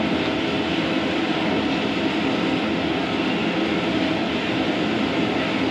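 Steady roar of a large high-pressure gas burner heating a big cooking pot: an even, unbroken rushing noise.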